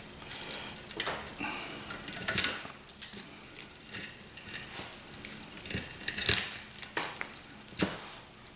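Copper windings from a boiler pump motor being pulled out and handled, with intermittent metallic clinks, scrapes and rustling, and a few sharper clinks about two and a half, six and eight seconds in.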